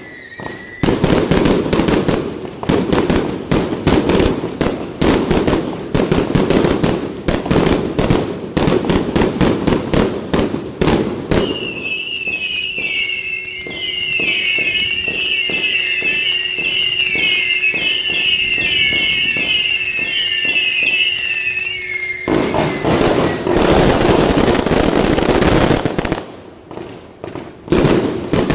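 Fireworks display: a dense, rapid barrage of bangs and crackles for about eleven seconds, then about ten seconds of many high warbling whistles over lighter pops, then another dense barrage of bangs that eases briefly near the end before picking up again.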